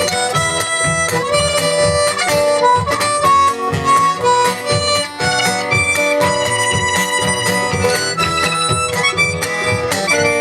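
Band playing an instrumental break: a harmonica carries the melody over guitar and a pulsing bass line.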